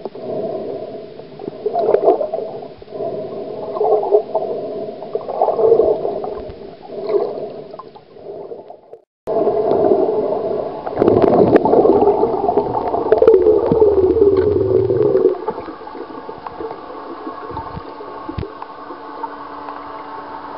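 Motorboat engine heard underwater: a wavering hum that swells and fades about every two seconds. It cuts out briefly about nine seconds in, returns louder with a warbling sweep, then settles into a quieter, steady drone.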